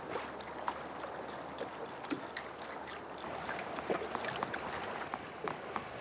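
Small waves lapping against the hull of a boat at sea: a steady wash of water with many small, irregular splashes and drips.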